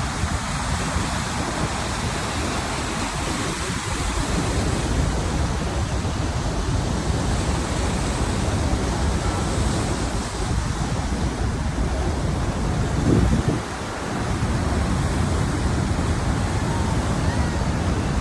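Steady rushing roar of the Niagara River and falls, with wind buffeting the microphone. It dips briefly once, near the end.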